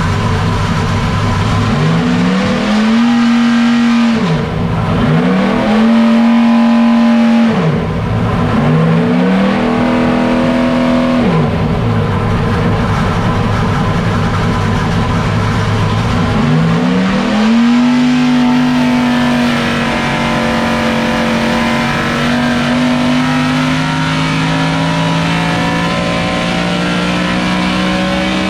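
Naturally aspirated Dodge R5P7 NASCAR 357-cubic-inch small-block V8 on an engine dyno, blipped up from idle three times in quick succession, then taken up again into a long, slow, steady climb in revs that is still rising at the end.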